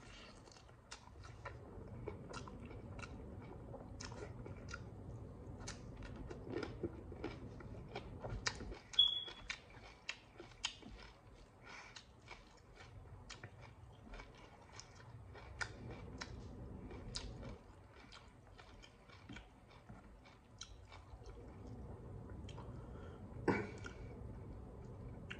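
A person chewing big mouthfuls of rice and fish close to the microphone: continuous wet, smacking mouth sounds with many small clicks, and a couple of louder clicks.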